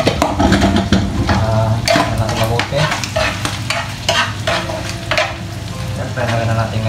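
Diced pork sizzling in hot oil in a black wok as it browns, stirred with a metal spoon that scrapes the pan in irregular strokes about once a second.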